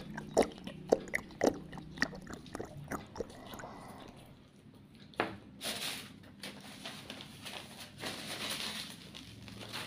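Close-up mouth sounds of a person eating roast chicken: irregular sharp smacks and crunches of biting and chewing in the first few seconds. Later comes a longer papery rustle as a tissue is rubbed over the mouth.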